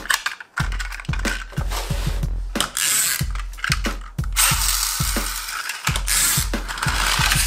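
Quick clicking and ratcheting of a diecast garbage truck model's plastic rear loader mechanism being worked by hand. From about halfway in comes a longer rushing noise as the toy truck's wheels roll along a wooden floor. Background music with a steady beat runs underneath.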